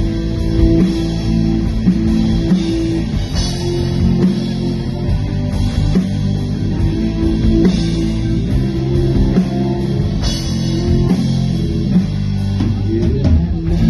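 Live rock band playing: electric guitar, bass guitar and drum kit.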